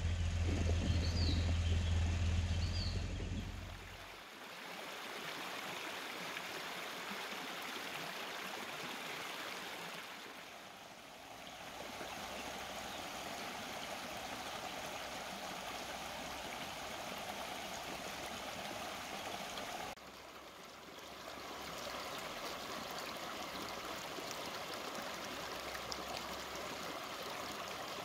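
Shallow stream water running steadily over stones and gravel down a rock weir's low-flow channel, fading briefly twice. For the first four seconds a low steady drone comes before the water, with a few short bird chirps.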